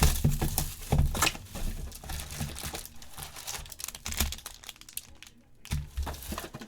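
Plastic wrapping on a sports-card hobby box crinkling and tearing as it is opened by hand, in irregular crackles, busiest at first and thinning out later.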